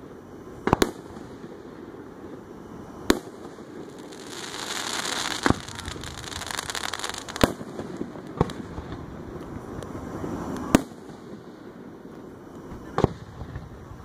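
Aerial firework shells bursting overhead with sharp booms, about seven in all, one every one to two and a half seconds, and a few seconds of crackling hiss in the middle.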